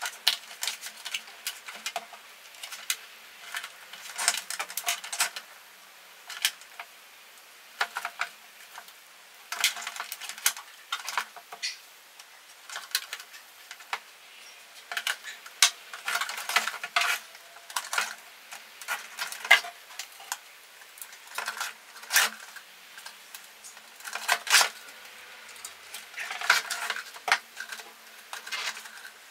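Irregular clicks, taps and light knocks of a translucent plastic box and plastic offcuts being handled and pressed together on a workbench.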